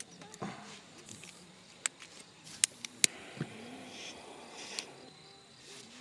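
Faint chirping of insects such as crickets, with a handful of sharp clicks about two to three seconds in.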